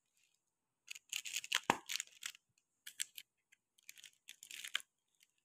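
Thin plastic carrier bag rustling and crinkling in irregular bursts as it is pulled open around a paper takeaway box, starting about a second in and stopping near the end.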